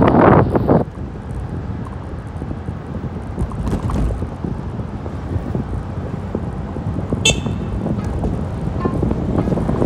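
Wind buffeting the microphone of a moving moped, which dies down after about a second and leaves a low, steady street and traffic rumble. A short, high horn toot sounds about seven seconds in.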